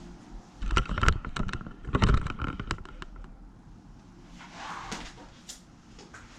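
Plastic bag crinkling as it is handled, in two short bursts of crackles and clicks, then a softer rustle near the end.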